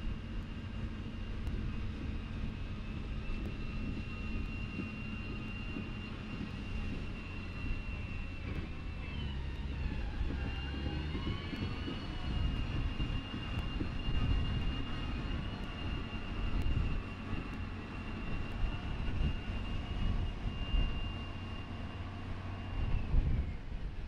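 Ultra Heavy-Lift Amphibious Connector prototype running: a low engine rumble under a steady high whine. The whine wavers in pitch about ten seconds in, then slides down and stops near the end.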